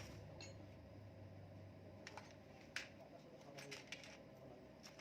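Near silence with a few faint, sharp clicks and taps of metal engine parts being handled during reassembly, the clearest a little under three seconds in.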